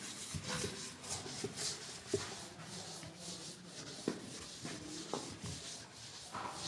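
A chalkboard duster wiping chalk off a blackboard: repeated rubbing strokes with a few light knocks.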